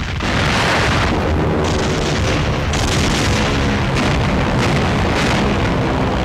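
Battle sound of a wartime newsreel: a continuous din of explosions and gunfire, surging loudly right at the start and shifting in intensity twice more in the first three seconds.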